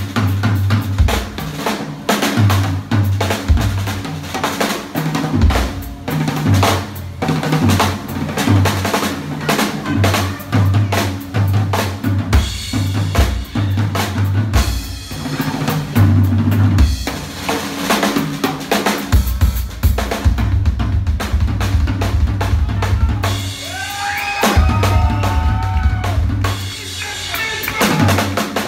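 A drum solo on a full drum kit: rapid snare and tom fills and rimshots over a driving bass drum, played live.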